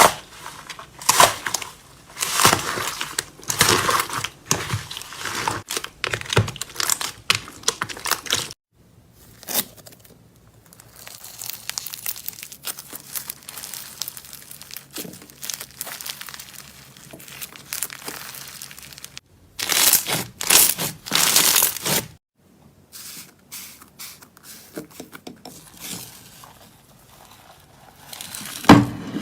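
Slime being squeezed and pressed by hand, giving off dense crackling and crinkling pops in bursts, some passages louder than others, with a single thump near the end.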